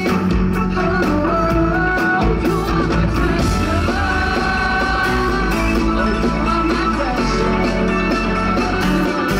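A live pop-rock band playing, with electric guitar, keyboard and a steady drum beat, and a singer's voice over it.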